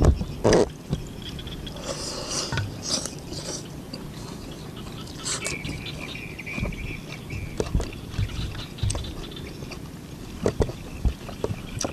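Close-up eating sounds: chewing and wet lip smacks, with scattered short clicks as fingers pick food from the tray.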